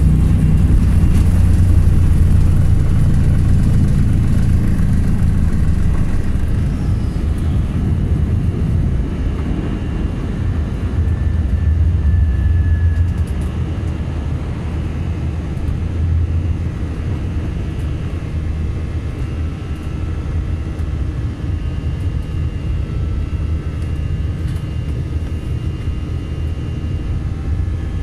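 Airbus A321 airliner at takeoff power, heard from inside the passenger cabin: a loud deep rumble with faint thin whining tones above it. The low rumble eases a little about halfway through, as the aircraft climbs away.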